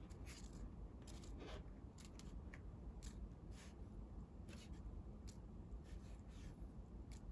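A sheet of colored paper being handled: a dozen or so short, crisp rustles and crinkles at irregular intervals, faint over a low steady hum.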